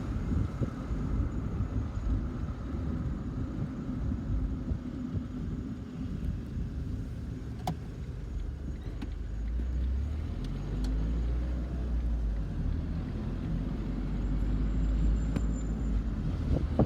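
Low, steady vehicle rumble that grows heavier in the second half, with a few faint clicks.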